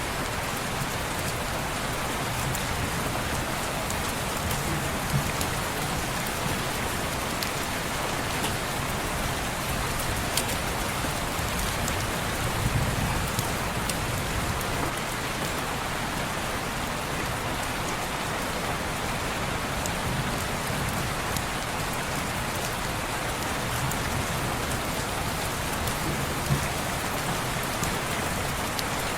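Steady rain falling on window glass, with scattered light ticks and a few brief soft low swells.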